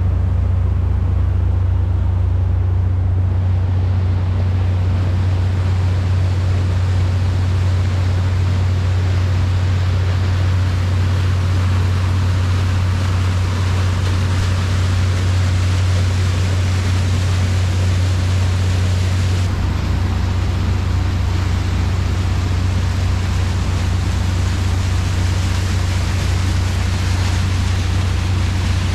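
Steady low drone of the 1997 Albin 34's inboard engine running under way, with the rush of water and wind along the hull.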